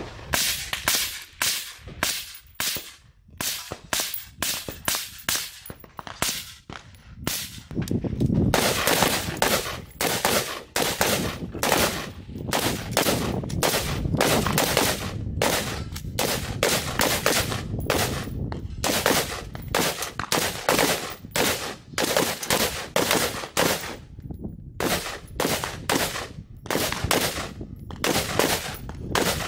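Gunfire from several shooters on a firing line with AR-style rifles and handguns. Single shots are spaced out for the first several seconds, then become a rapid stream of overlapping shots from multiple guns at once, with a brief lull near the end.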